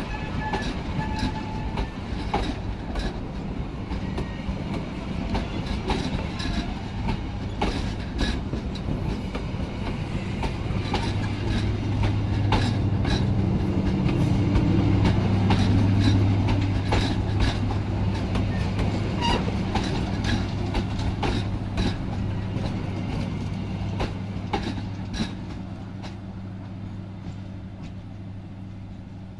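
Baturraden Ekspres passenger coaches rolling past close by, their wheels clacking again and again over the rail joints over a low steady hum. The hum is loudest in the middle, and the clacks and hum fade near the end as the last coach goes by.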